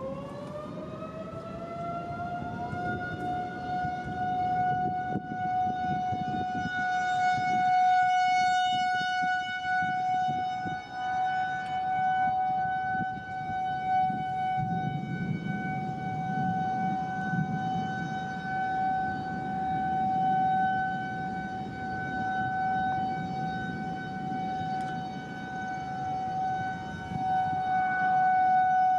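Outdoor civil-defense tornado siren winding up, rising in pitch over its first couple of seconds, then holding one steady tone, over a low steady rumbling noise.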